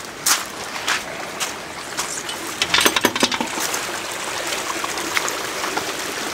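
Rainwater runoff running and trickling down a gravel channel, a steady water hiss with scattered sharp splashes and spatters, a dense cluster of them about three seconds in.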